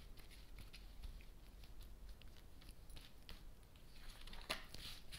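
Fingertips running over a fanned-out row of cards, making faint light clicks and ticks against the card edges. A louder brushing scrape comes about four and a half seconds in.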